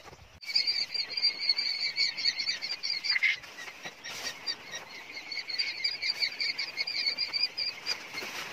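A brood of newly hatched quail chicks peeping, many quick high chirps overlapping in a continuous chorus that starts suddenly about half a second in.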